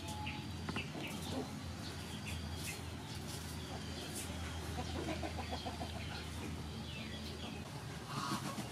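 Backyard chickens clucking, with small birds chirping around them; the clucking grows louder near the end.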